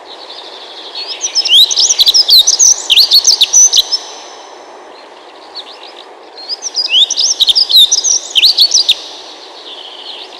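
European robin singing: two phrases of rapid, high, thin warbling notes that slide up and down, with a pause of about two seconds between them.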